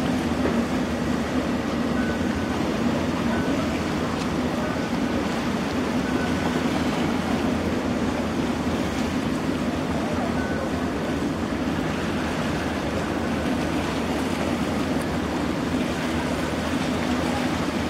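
A harbour ferry's diesel engines running steadily as the vessel goes astern, a constant low drone over the wash of churned water.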